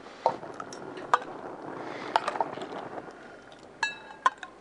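Metal ladle knocking and clinking against a stainless steel pot and small metal serving dishes as soup is ladled out: a few sharp clicks, then a ringing metallic clink near the end.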